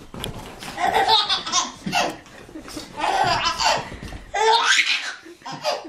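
A baby belly-laughing in several hearty bursts.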